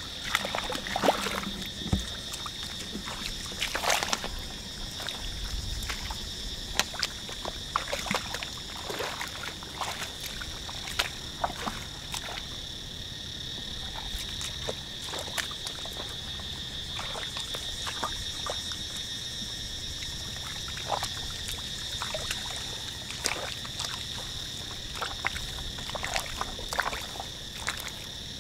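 Scattered wet splashes and squelches of hands and feet working through shallow, muddy paddy water, over a steady high-pitched chorus of small calling animals.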